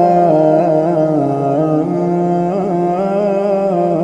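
A man's voice reciting the Quran in melodic tajweed style, holding the long drawn-out vowels of the opening letters Alif, Lam, Mim. The pitch steps slowly up and down with small ornaments, and there are no breaks.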